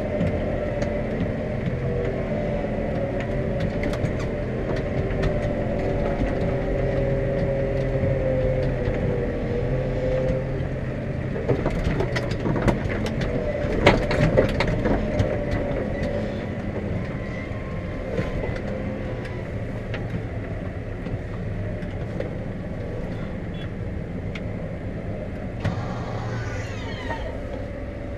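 Steyr 4130 Profi CVT tractor's diesel engine running steadily, heard from inside the cab, with a wavering whine over the drone. From about 11 to 16 seconds in, a run of rattles and knocks comes over the engine.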